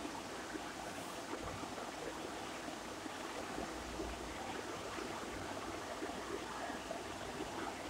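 Steady hiss of background noise with no distinct events.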